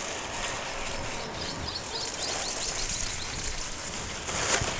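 Steady outdoor background noise with faint bird chirps, a quick run of them a little over a second in.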